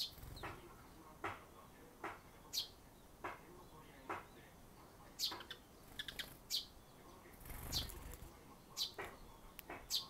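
Eurasian tree sparrows chirping: short, sharp chirps about once a second, some in quick runs, with a brief flutter of wings a little before the end as a sparrow lands close by.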